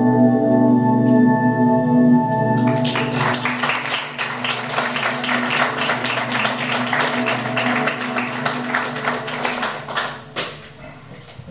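Closing music holding a sustained chord, with audience applause breaking out about three seconds in and dying away near the end as the music fades.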